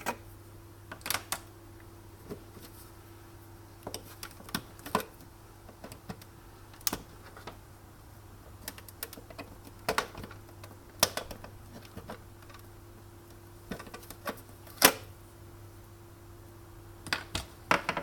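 Irregular sharp clicks and knocks of tools and plastic parts being handled while a Sunbeam espresso machine is taken apart, the loudest about fifteen seconds in, over a steady low hum.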